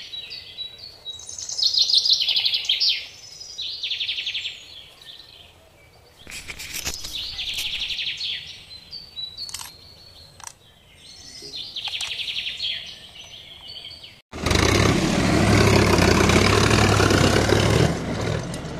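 Small birds chirping in repeated high, rapid trilled bursts, with a few light clicks between them. About fourteen seconds in, this gives way suddenly to a louder steady rushing noise with a low hum.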